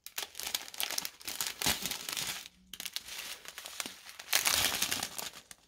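A strip of small plastic bags of diamond-painting drills crinkling as it is handled and turned over. There is a brief pause a little past the middle, and the crinkling gets louder for a moment near the end.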